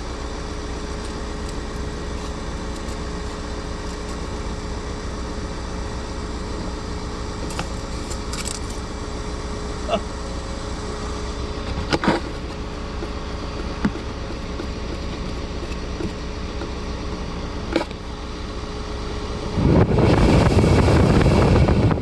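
A car running with a steady mechanical hum, broken by a few light clicks and knocks as parts are handled. Near the end comes a loud rush of air lasting about two seconds.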